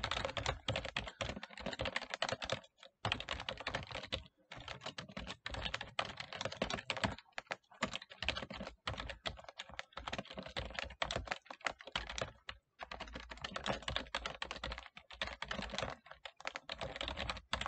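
Typing on a computer keyboard: a fast, continuous run of key clicks with a few brief pauses.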